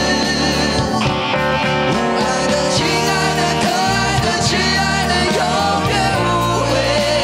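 Four male voices singing a Mandarin rock ballad together over band accompaniment with guitar.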